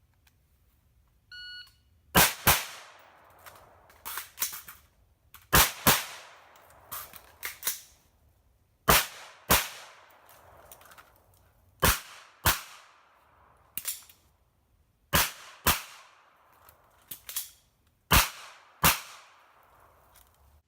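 A shot timer beeps once about a second in, then twelve gunshots follow in six quick pairs, about three seconds apart. Clicks and clacks of magazine reloads fall between the pairs. The first three pairs come from a rifle and the last three from a pistol after a transition, each magazine holding two rounds.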